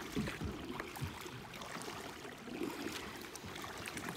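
Kayak paddling on calm water: paddle blades dipping in with soft splashes, and water dripping and trickling along the plastic hull.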